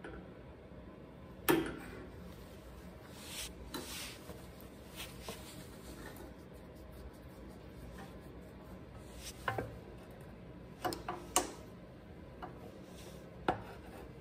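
Pliers and a screwdriver clicking and scraping against a Tecumseh OHV engine's carburetor and linkage as it is bolted back on. The sounds are a scattering of light metal clicks and knocks, the sharpest about a second and a half in and several more near the end.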